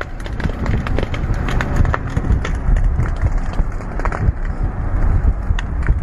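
Van driving along a rough dirt track, with a steady low rumble from the ride and the wind, and scattered sharp cracks and knocks.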